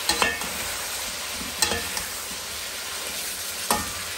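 Chicken pieces sizzling as they fry in hot ghee in a metal karahi. A perforated metal spoon stirs them, clinking sharply against the pan a few times.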